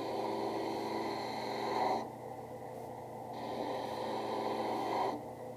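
Leather holster edge being sanded on a sanding drum spinning in a drill press: two passes of about two seconds each with a short break between, over the steady hum of the drill press motor.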